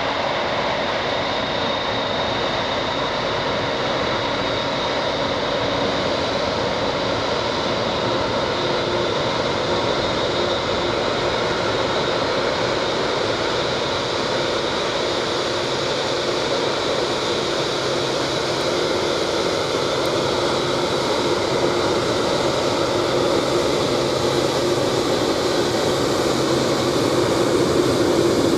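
Jet engines of a Boeing 747-8F freighter running at taxi power, a continuous steady engine noise with steady tones in it, growing slowly louder.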